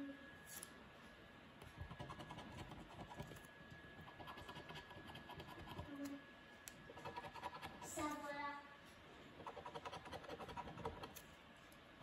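A coin scraping the coating off a scratch-off lottery ticket, faint, in several short spells of quick strokes with pauses between them. A brief pitched sound stands out about eight seconds in.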